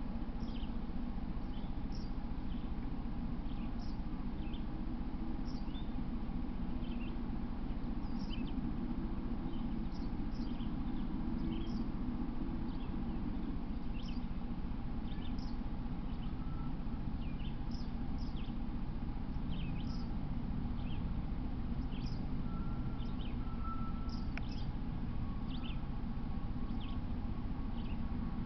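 Small birds chirping: short high chirps, each a quick downward sweep, repeated irregularly about once a second over a steady low background rumble.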